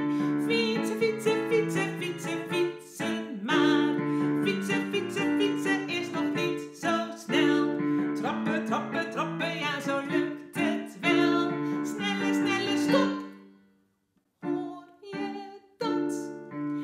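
A woman singing a children's song in Dutch while accompanying herself with chords on an electronic keyboard. The music breaks off briefly about three-quarters of the way through, then the keyboard comes back in.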